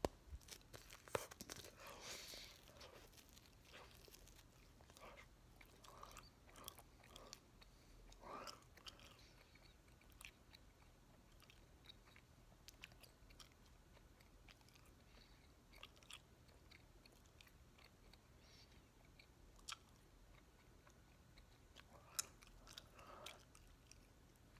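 Three pieces of Bubbaloo bubble gum chewed with the mouth, giving faint, wet smacking and sticky clicking. The sounds are busiest in the first few seconds, again around the middle and about 22 seconds in, and sparse between.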